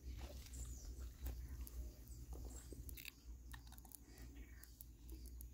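Faint crackling clicks of dry smoked fish skin and flesh being torn apart by hand, then chewing as the fish is eaten.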